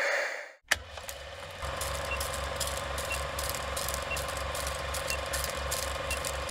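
A mechanical clattering sound effect: a sharp click, then a steady rattle of quick clicks over a low pulse about four times a second.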